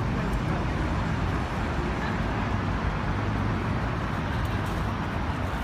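Steady road traffic noise on a busy city street, a continuous low rumble of passing vehicles.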